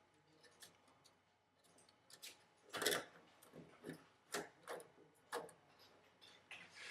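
Small clicks and taps of a screwdriver and wire working a screw terminal on a terminal block as a wire is fastened down. The clicks are irregular, the loudest about three seconds in, then coming about every half second.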